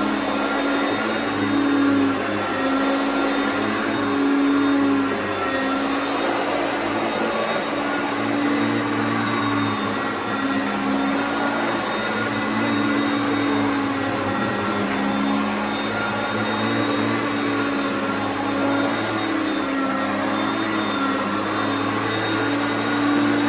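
Hoover Concept upright vacuum cleaner running on high speed: a steady motor whine whose pitch wavers slightly throughout.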